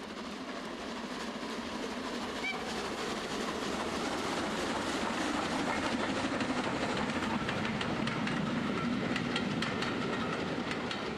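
A train running past with a rumble and the clickety-clack of wheels over rail joints, swelling in loudness and then beginning to fade.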